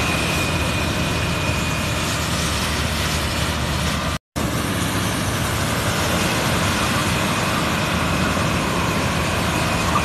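Self-propelled corn harvester running steadily in the field, its engine and harvesting machinery making a continuous loud drone. The sound cuts out completely for a moment about four seconds in.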